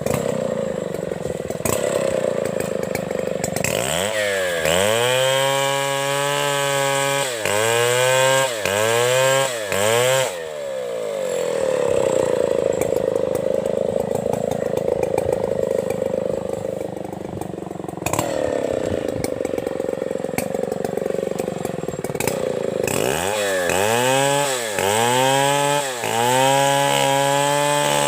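Two-stroke chainsaw sawing up a fallen coconut palm trunk, running steadily at high speed through long stretches, with quick repeated revs up and down a few seconds in and again near the end.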